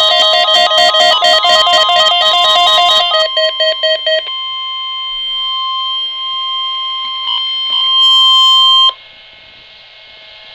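Electronic alert beeps warble rapidly for about three seconds, then slow to spaced pips. The NOAA Weather Radio warning alarm follows: a single steady tone near 1 kHz, held for about five seconds, sounding here as the weekly test. It cuts off suddenly and leaves a faint hiss.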